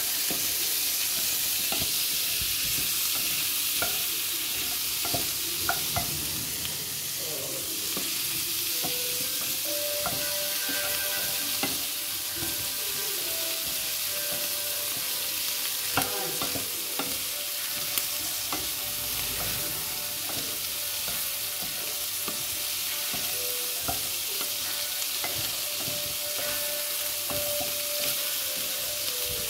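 Asparagus sizzling in oil in a frying pan while a wooden spatula stirs it, scraping and knocking against the pan. A steady hiss runs under scattered clicks, with a couple of sharper knocks a little past halfway.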